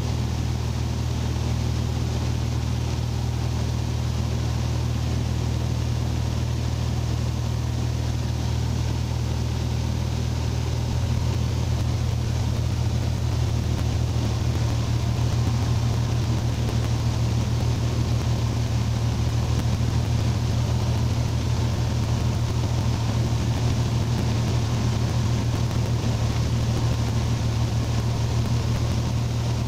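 A Mooney's single piston engine and propeller droning steadily in the cockpit in cruise descent. The drone is a low hum, and about eleven seconds in its pitch shifts slightly and it gets a little louder.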